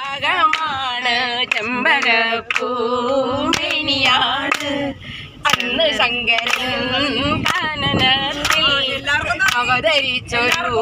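Bus passengers singing a song together, mostly women's voices, with hand claps keeping time.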